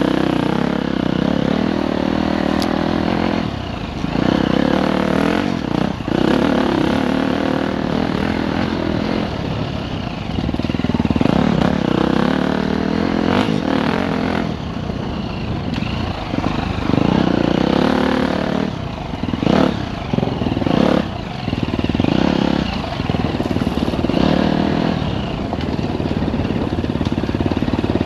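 Enduro dirt bike engine on a woods trail, revving up and dropping off again and again as the throttle is opened and closed, with a few sharp knocks from the bike over rough ground.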